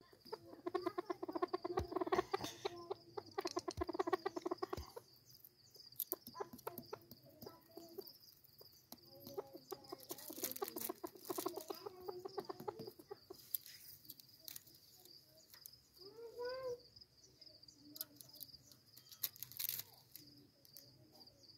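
Chukar partridge calling: bursts of rapid, pulsed chuck-chuck clucking during the first five seconds and again from about nine to thirteen seconds, then a single rising call about sixteen seconds in. A steady high-pitched tone and scattered clicks lie underneath.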